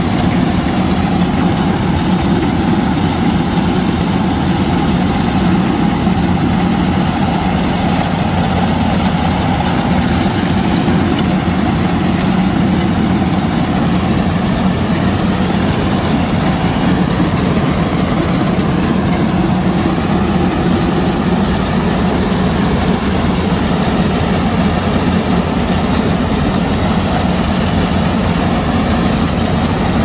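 Kubota DC-105X combine harvester running loud and steady, its diesel engine holding one constant speed with no changes in pitch.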